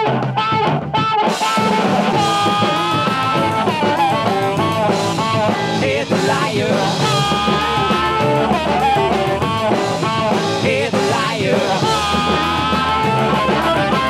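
Blues-rock recording with singing over electric guitar, bass and a drum kit, playing continuously.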